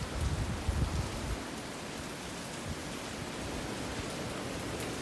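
Torrential rain pouring down in a thunderstorm, a steady even hiss. In the first second and a half, low gusty rumbles of wind buffet the microphone, then the rain carries on alone.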